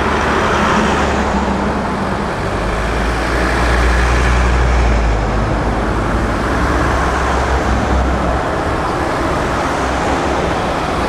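A column of Mercedes-Benz G-Class off-road vehicles driving past close by one after another, a steady mix of engine rumble and tyre noise.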